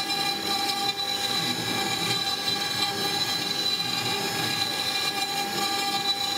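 CNC-6090 router spindle whining steadily while its cutter mills wet sandstone under a coolant spray, with a rough cutting noise beneath the whine.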